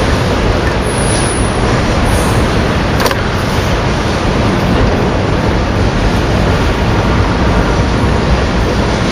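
Container freight train's wagons rolling past, a steady noise of wheels on rail, with a single click about three seconds in.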